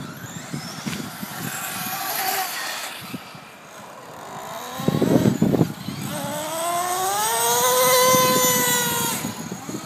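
Traxxas RC car running fast: a motor whine that climbs in pitch about six seconds in, holds high and then fades, with a hissy rush earlier and a brief loud burst of low noise around five seconds in.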